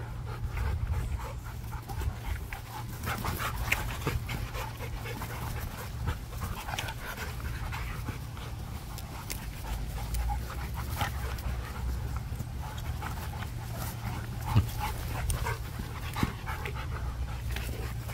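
Rottweiler panting hard while running after a lure, over a steady low rumble, with a few sharp knocks near the end.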